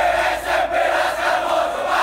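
A stand of football supporters shouting together in one long, held chant.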